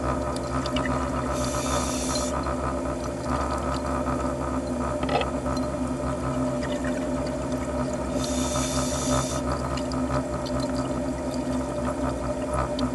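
Underwater ambience: a steady hum of several fixed tones, with a diver's scuba regulator hissing twice, each inhale about a second long.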